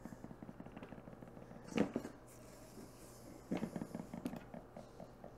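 A spatula scraping and tapping against a stainless steel mixing bowl and glass pie plate as crumbly topping is spooned out, in quick runs of small clicks, with one sharper knock about two seconds in.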